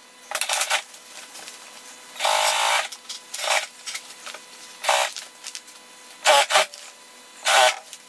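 Heavy-duty triple-feed industrial sewing machine stitching through thick padded layers in six short runs of under a second each, with pauses between them as the work is guided. A faint steady hum lies under it all.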